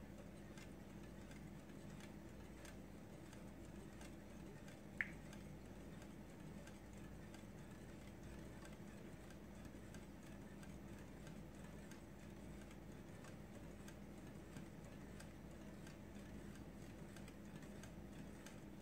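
Wire whisk stirring liquid in a glass mixing bowl, its wires ticking faintly and irregularly against the glass, with one brighter clink about five seconds in. A low steady hum runs underneath.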